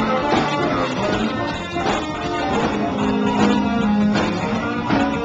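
Live blues-rock band playing: guitar over drums, with a held low note a little past the middle.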